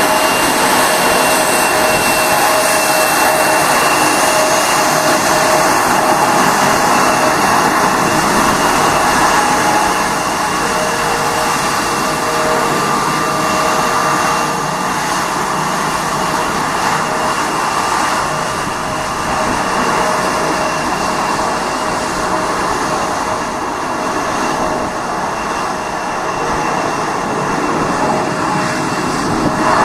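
Airliner's turbine engines running steadily, a constant rush with a high whine on top, as the plane moves off under its own power rather than being pushed back by a tug.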